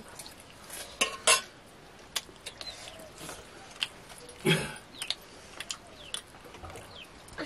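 Metal plates and dishes clinking and knocking as people eat by hand, in scattered sharp clinks, with a louder knock about a second in and another a little past halfway.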